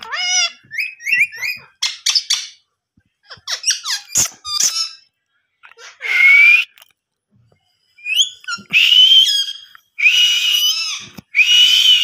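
Indian ringneck parakeet chirping and squeaking in short rising and falling notes, then giving loud, harsh squawking calls, one about six seconds in and several more in the last few seconds.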